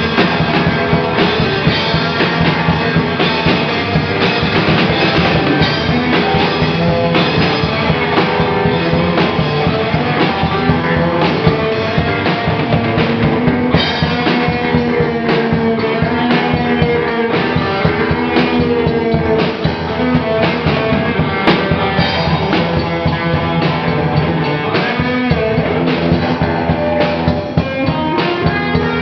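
A three-piece rock band playing live: a drum kit, an electric guitar and an electric bass in an improvised punk-rock jam, drums pounding steadily throughout.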